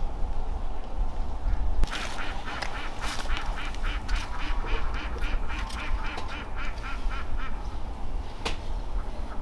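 Ducks quacking in a quick run of calls, about three a second, starting about two seconds in and dying away after about five seconds, over a low steady rumble. A single sharp click comes near the end.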